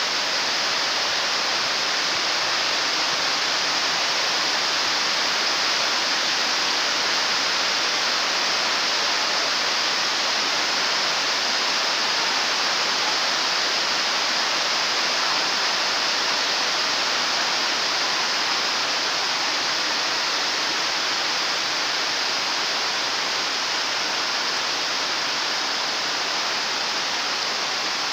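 Rain falling on a sheet-metal canopy roof: a dense, even hiss that holds steady without a break.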